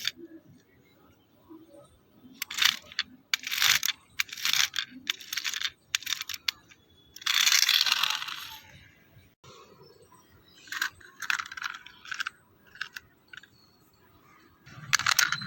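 Small hard parts clicking and clattering as they are handled and set down, in irregular groups of sharp knocks, with one longer burst of noise about seven seconds in.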